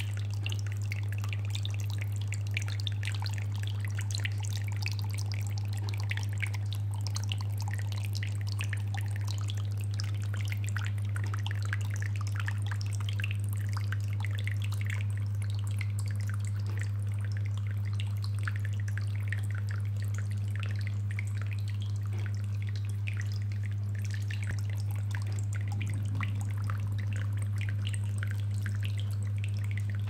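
Small tabletop waterfall fountain running: water trickles and drips down cement rockwork into the basin in many small, irregular splashes. Under it, the loudest thing is a steady low hum from the submersible aquarium pump that drives it.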